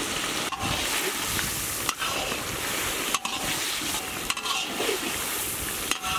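Crab curry sizzling and bubbling in a large kadai as a ladle stirs it, a steady frying hiss that breaks off for an instant several times.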